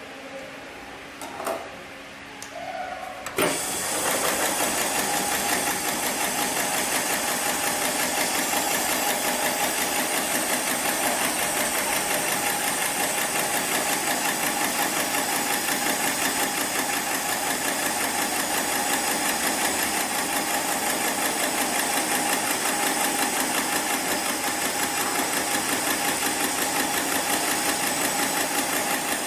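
Heavy-duty programmable pattern sewing machine for thick polyester and nylon sling webbing starting up about three seconds in, after a few clicks, then stitching at a steady, rapid rate.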